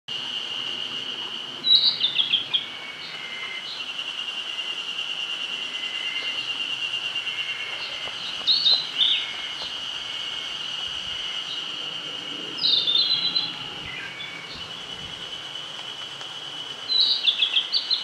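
Male Narcissus flycatcher singing: four short phrases of quick whistled notes stepping down in pitch, several seconds apart, over a steady high, rapidly pulsing buzz.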